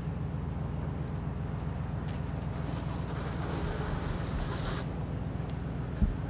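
Steady low rumble of a moving vehicle, with a brief rise of hiss in the middle and a single thump near the end.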